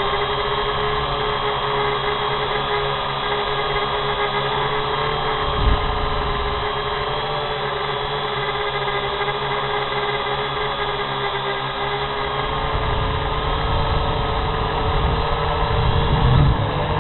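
Camera drone's electric motors and propellers whining steadily while it hovers and drifts, heard through its own onboard camera as several steady tones at once. A short thump comes about six seconds in, and a low rumble builds near the end.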